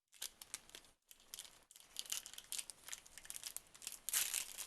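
Foil wrapper of a Pokémon booster pack crinkling and tearing as it is opened: a run of quick crackles, with a louder stretch about four seconds in.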